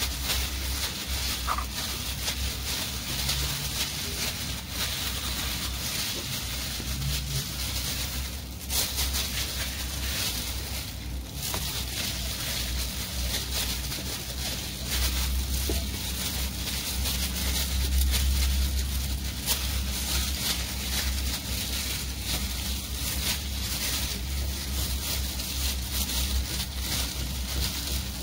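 A plastic bag worn as a glove rustling and squishing as it rubs seasoning and oil into a raw whole chicken in a stainless steel bowl, over a steady low hum.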